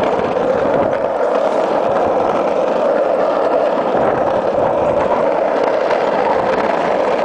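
Skateboard wheels rolling fast over smooth, freshly laid asphalt: a loud, steady, even rolling noise without breaks.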